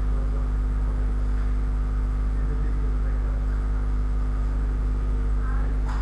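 Steady low electrical hum, mains hum with a drone of several constant tones above it, unchanging throughout, with a faint click near the end.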